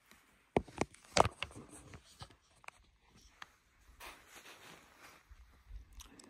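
Handling noise from a hand-held camera while walking on a dirt trail: a few sharp knocks about half a second to a second and a quarter in, then scattered clicks, scuffing and rustling.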